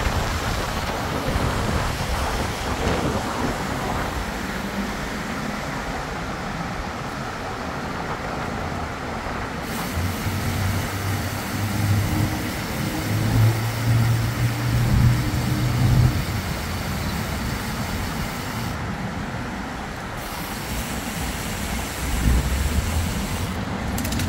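City street traffic noise, with a vehicle's low engine hum coming up for several seconds in the middle and again briefly near the end.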